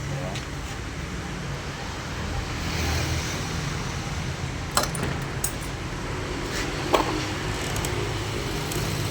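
Car engine idling with a steady low hum; the scanner has reported a misfire on cylinder 4. A few sharp metallic clicks from tools or parts come about halfway through and again near the end.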